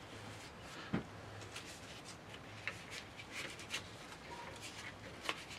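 Faint rustling and light ticks of dry, papery onion skins and stalks being handled, with a soft knock about a second in, as an onion is worked onto a hanging onion string.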